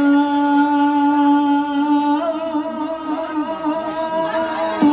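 Mor lam band music: one long held melodic note that steps up slightly about two seconds in, with softer moving lines beneath it.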